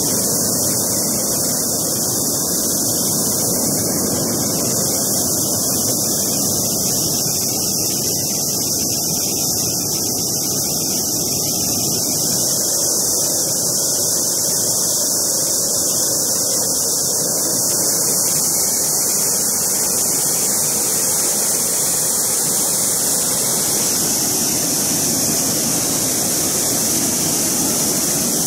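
Giessbach Falls, a large waterfall, rushing steadily onto rock as an even, unbroken noise that grows slightly fuller in the second half.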